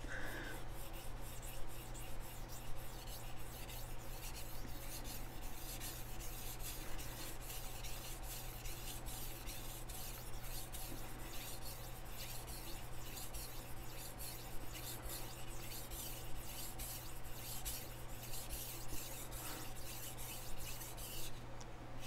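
Chef knife edge being stroked back and forth on a wet whetstone, an unbroken run of rasping strokes: steel being ground off the bevel to raise a burr.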